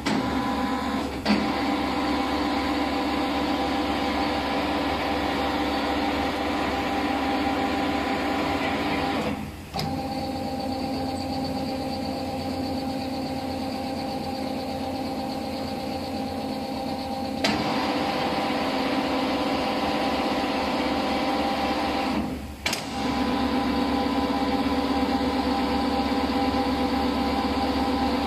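Four-roll sheet metal bending machine running with a steady mechanical whine and hum. The drive stops briefly twice, about a third of the way in and again near three-quarters through, each time with a sharp click, and there is another click near the middle.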